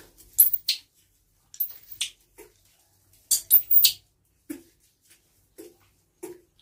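Newborn monkey calling while it is held and washed: a few sharp, high-pitched squeals in the first four seconds, then short soft low cries about once a second.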